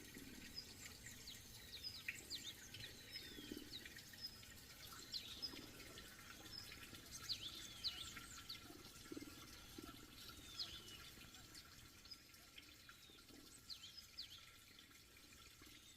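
Faint birds chirping, with short high falling calls scattered throughout, over a soft trickle of water.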